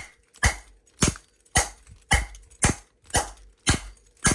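Disecu padlock being struck over and over with a piece of wood, sharp evenly spaced whacks about two a second. This is a sustained beating test of the lock, which is holding up.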